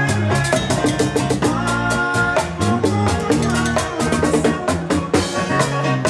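Live band music with a drum kit keeping a steady beat under bass and keyboard.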